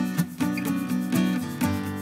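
Background music: an acoustic guitar plucked in a quick, steady rhythm.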